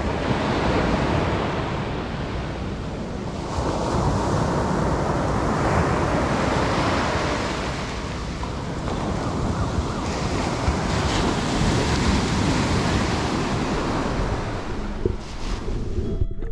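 Sea surf washing and wind buffeting the microphone, the rushing noise swelling and easing every few seconds. Near the end the hiss cuts off suddenly.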